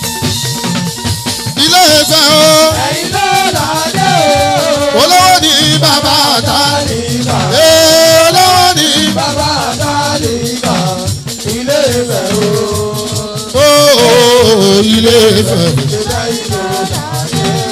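Live fuji music: a lead voice sings in long, wavering lines over shaken shekere rattles and percussion.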